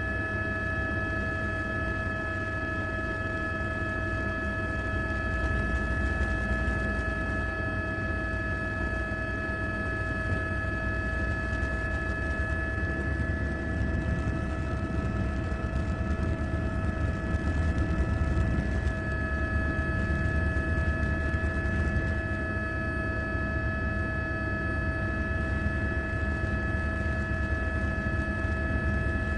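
Helicopter running steadily: a constant hum with several fixed whining tones over a low rumble that grows slightly louder around the middle.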